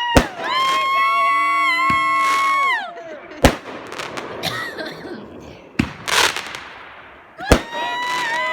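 Fireworks going off: a sharp bang, then a steady high whistle held for about two and a half seconds before it drops away, then several more bangs with crackling between them, and a second whistle starting near the end.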